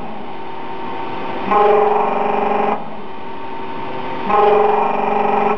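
K32L slant-bed CNC lathe running with a steady mechanical hum. A louder humming tone comes in for about a second and a quarter, twice (about 1.5 s and 4.3 s in), in an even repeating cycle.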